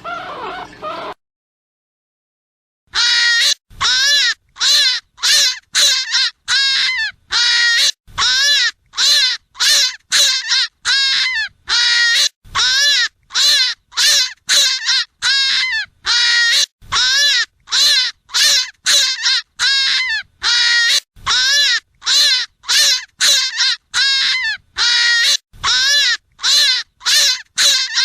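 Hare giving a long series of short, harsh, arched cries, about two a second, the squealing call used as a predator lure. A different, gliding call ends within the first second, and after a short silence the series begins about three seconds in.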